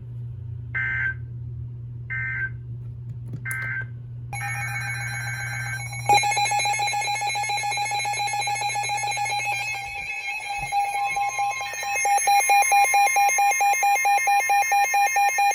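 NOAA weather radio receivers going off for a new severe thunderstorm warning. It opens with three short chirps of digital alert header data, then the radios' alert tones: a loud, rapidly pulsing beep with a steady tone joining it, growing louder about twelve seconds in.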